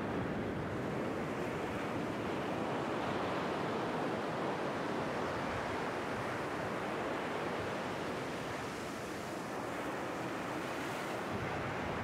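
Small waves washing in over shallow water on a sandy beach: a steady rush of surf.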